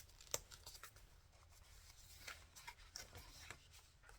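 Faint handling of paper and card: a few soft taps and light rustles as a card is slipped into a journal page.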